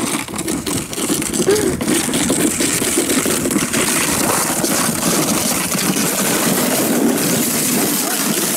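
Red plastic sled sliding down a packed-snow slide, its hull scraping over the snow in a steady rushing noise.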